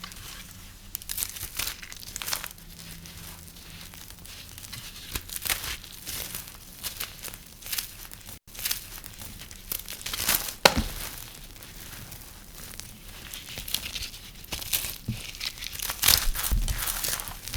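Knife cutting dry soap: a string of irregular crisp, crackling scraping strokes, the sharpest a little past the middle.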